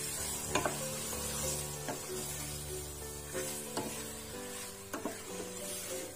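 Spatula stirring raw chicken pieces and spice paste in a stainless steel pot, with frying sizzle and a few sharp knocks of the spatula against the pot. Background music plays along.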